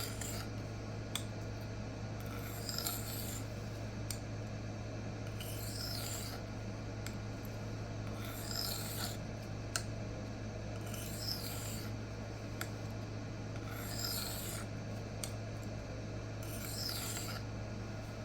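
Knife blade of Böhler K110 steel drawn across a Rikon CBN sharpening plate: a rasping scrape about every three seconds, with light clicks between strokes, over a steady low hum.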